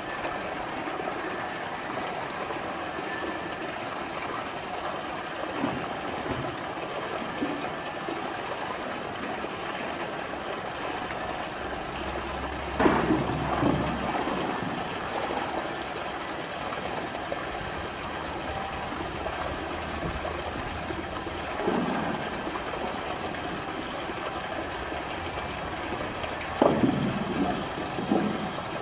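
Water splashing and sloshing as a polar bear moves through its pool with a floating buoy, with louder splashes about halfway through and a few more near the end, over a steady background rush.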